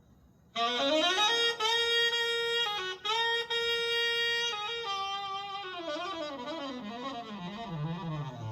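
Unaccompanied tenor saxophone: after a short pause it slides up into a long held note, then moves through a few shorter notes and winds down in a quick falling run.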